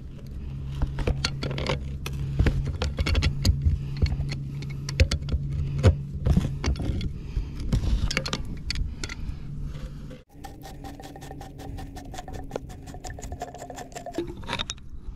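Pipe wrench being worked on a tight brass union on a buried water line: irregular metal clinks, knocks and scrapes of the wrench jaws on the fitting, over a steady low machine hum. About ten seconds in the sound cuts and a higher steady hum with fast, even ticking takes over.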